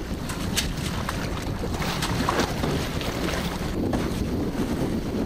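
Wind buffeting the microphone on a small work boat at sea, with choppy water washing against the hull and a few brief light knocks.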